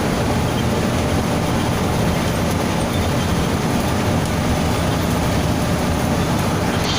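Steady rumble of engine and road noise from a bus travelling at speed.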